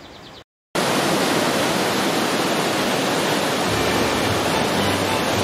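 Waterfall of a mountain stream pouring down a narrow rocky gorge: a loud, steady rush of water. It cuts in suddenly just under a second in, after a brief moment of silence.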